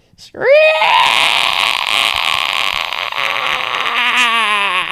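A person shrieking a long, loud banshee wail. It rises sharply about half a second in, holds, then wavers and sinks in pitch near the end.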